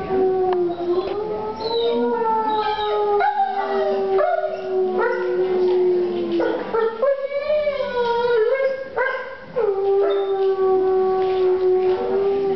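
A wolf howling: a long, level howl, then a wavering, broken stretch of howling in the middle, then another long, level howl.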